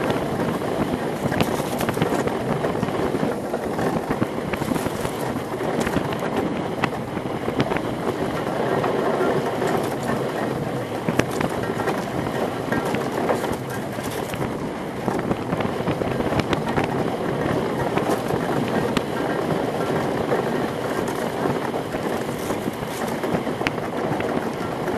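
Monotype XV ice yacht sailing at speed: a steady rushing noise of its runners sliding over the ice and wind on the rig, with scattered sharp clicks and knocks as the runners pass over rough ice.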